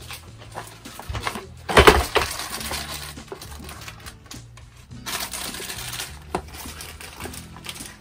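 Clatter and clinks of small hard parts being handled, loudest in a short burst about two seconds in, over background music.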